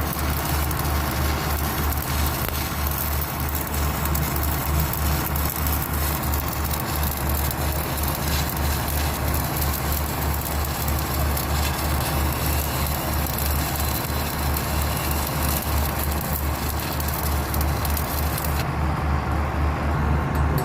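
Electric arc welding: a continuous crackling and sizzling from the arc over a steady low electrical buzz. Near the end the high crackle drops away for about two seconds while the buzz carries on.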